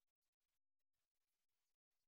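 Near silence: the soundtrack holds no audible sound, only a faint digital noise floor that drops out now and then.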